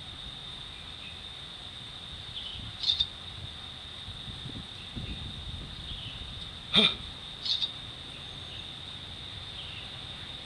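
Steady high-pitched insect drone. A few short, sharp sounds cut in over it; the loudest is a click about seven seconds in.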